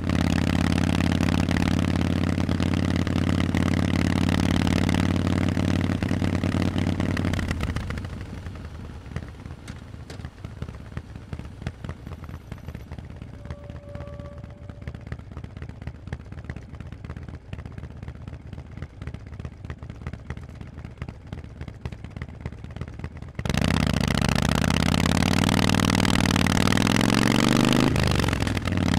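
Harley-Davidson Forty-Eight's air-cooled 1200 cc V-twin running through Vance & Hines pipes: a steady, loud exhaust note at a constant speed. About eight seconds in it drops to a much quieter, uneven throb. About 23 seconds in it comes back loud all at once, and near the end it briefly dips and then rises in pitch as the throttle opens again.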